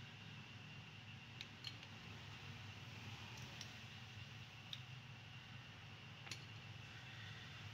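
A few faint, sharp plastic clicks and snaps as the electric fuel pump of a Toyota Avanza is worked loose from its in-tank filter housing, over a low steady background hum.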